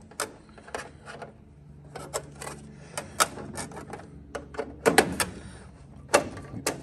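Irregular sharp metallic clicks and taps as Cleco temporary fasteners are fitted into holes in the aluminium wing-root rib and skin, the loudest clicks about five and six seconds in.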